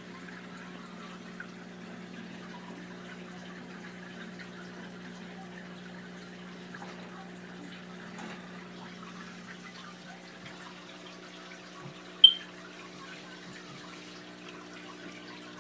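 Aquarium water trickling and dripping over a steady low hum from the tank's pump. A single short, sharp click about twelve seconds in.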